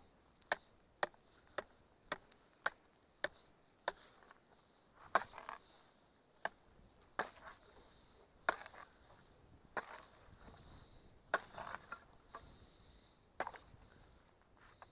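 Ice chisel chopping into thin lake ice: sharp strikes about twice a second at first, then slower, heavier blows, each followed by a short crunch of breaking ice.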